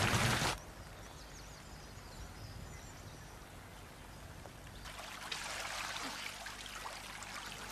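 Water of a stream running and trickling, faint at first and louder from about five seconds in. A brief burst of noise at the very start cuts off suddenly.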